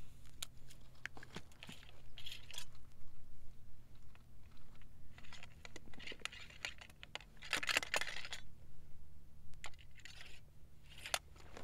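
Steel ramrod of a Lorenz rifle-musket being worked in the barrel during loading: bursts of scraping as it slides and many sharp metallic clicks, with rustling of clothing and paper cartridge.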